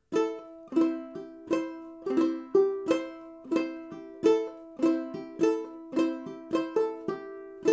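Duke 10 banjo ukulele in high-G reentrant tuning played clawhammer style. It gives a steady run of sharp plucked strokes, about three a second, over a ringing chord, with hammer-on notes from the fretting hand adding an extra note between the plucks.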